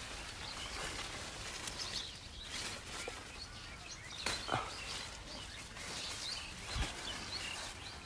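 Cucumber vine leaves rustling and crackling as hands push through them to pick cucumbers, with a few louder crackles and faint bird chirps in the background.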